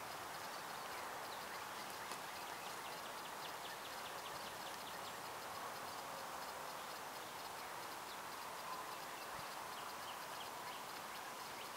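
Outdoor ambience with runs of quick, high ticking animal calls, several a second, over a steady background hiss.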